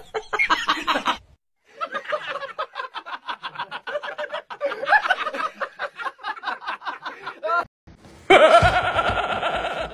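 A person laughing in quick repeated bursts for several seconds. About eight seconds in, a louder, steady-pitched sound starts suddenly and carries on.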